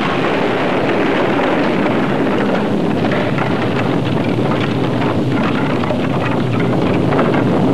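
Bamboo huts burning fiercely just after a staged dynamite explosion: a steady rushing noise with crackling.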